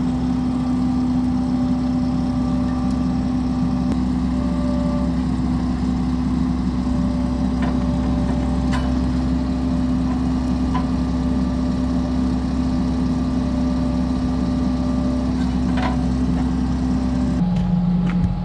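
Diesel engine of heavy equipment running steadily at a constant speed, with a few faint clicks. About a second before the end the engine note drops abruptly to a lower steady pitch.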